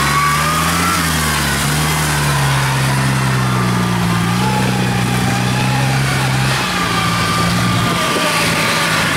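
Diesel engines of farm machinery running steadily close by: a tracked rice carrier loaded with sacks and a Kubota DC70 combine harvester. The engine pitch shifts slightly a couple of times, and a higher whine runs over it.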